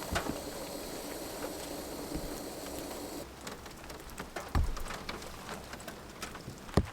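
Rain falling, with scattered drops striking close by and a few louder knocks, the loudest about two-thirds of the way through.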